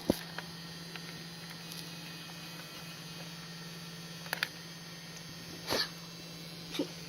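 A few brief clicks and small knocks of things being handled, over a steady low hum.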